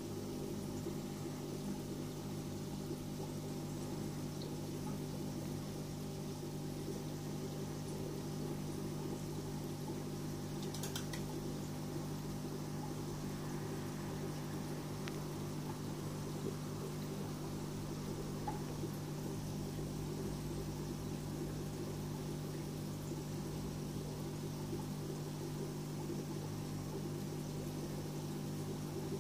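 Steady electrical hum of an aquarium pump with a faint watery hiss.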